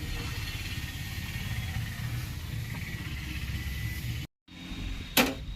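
A steady low mechanical rumble, like a running engine, cut off abruptly about four seconds in. A single sharp metallic clink follows near the end.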